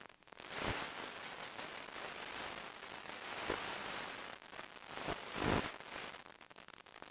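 Hiss and crackle on the audio of a long-range FPV video link, swelling into a louder rushing noise about half a second in, peaking a few times, and dropping back to thin crackling static near the end.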